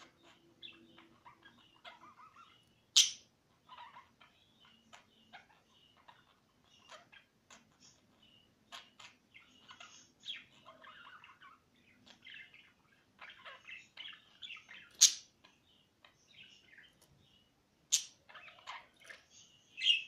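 Two small caged pet parrots chirping and twittering in many short scattered calls, with a few loud shrill calls standing out: one about three seconds in, one a little past the middle and two near the end.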